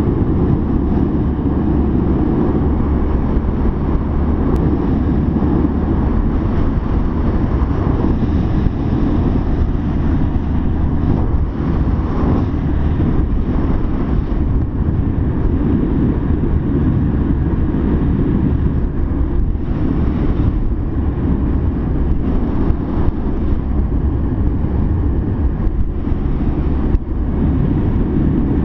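Sport motorcycle ridden at road speed, heard from a camera mounted on the bike: a steady, loud rumble of wind buffeting the microphone, mixed with engine and road noise.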